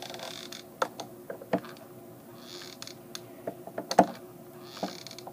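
Small craft items being handled on a work surface: scattered light clicks and taps, with one louder knock about four seconds in.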